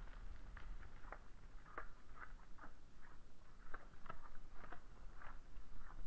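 Deer stags feeding in snow: irregular small crunches and clicks, several a second, over a steady low rumble.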